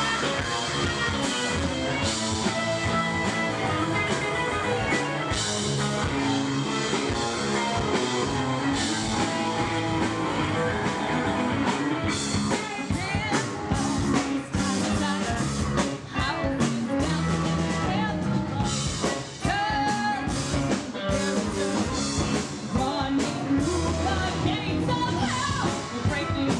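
Live rock band playing: a woman singing lead over electric guitars, bass and drums.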